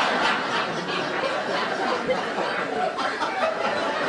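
Studio audience laughing at a punchline, a dense crowd laugh that holds through the pause.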